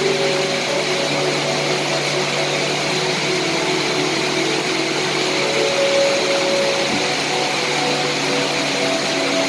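Steady rain hiss, even and unbroken, with faint low held tones beneath it.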